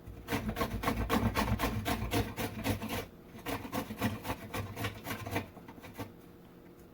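Peeled green plantain scraped back and forth on the coarse side of a metal cheese grater, a rasping stroke a few times a second as thin slices are cut. The strokes pause briefly about three seconds in and stop about a second and a half before the end.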